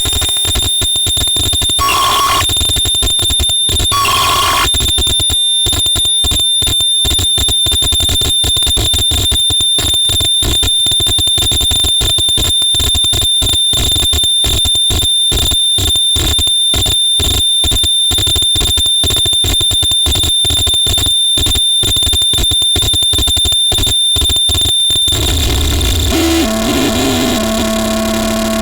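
Harsh noise music: loud, dense electronic noise with a steady high-pitched whine, chopped into a rapid stutter. About 25 seconds in the texture changes and a low steady drone comes in.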